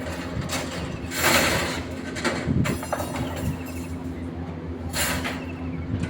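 An engine running steadily with a low hum, with two short bursts of hiss or scraping, about a second in and near the end.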